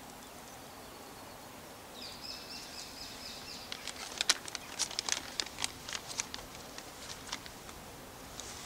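Birds calling in open country: a high thin call begins about two seconds in. Midway comes a few seconds of loud, sharp, irregular clicking, whose source the material does not show.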